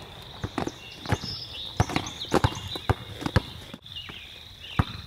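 About nine irregular sharp thuds of basketball play on an outdoor sport court, over a steady high-pitched drone of insects.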